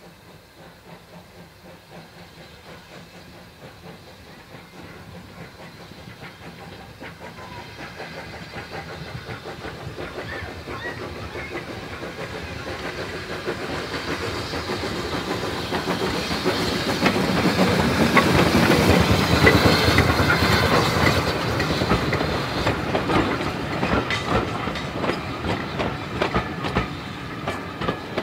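Peckett 0-4-0 saddle tank steam locomotive pulling away and passing close by, its exhaust beating in a regular chuff with steam hissing, growing louder to a peak about two-thirds of the way in and then easing. The wheels clatter over the rail joints as it goes by.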